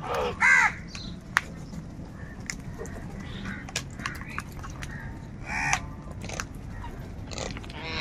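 House crows cawing: a loud harsh caw about half a second in, fainter caws through the middle, and another loud caw near six seconds. Scattered sharp clicks fall between the calls.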